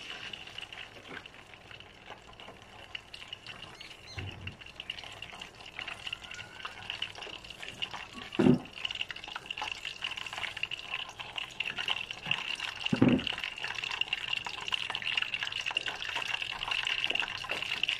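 Cooking oil heating in a steel pot on an induction cooktop, a steady high hiss with fine crackling that slowly grows louder as the oil warms up. Three soft thumps break in, the loudest about eight seconds in.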